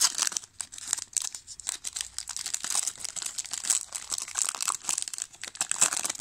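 Foil wrapper of a 2000 Topps Season Opener football card pack being torn open and crinkled by hand: a sharp rip, then dense crackling with no pause.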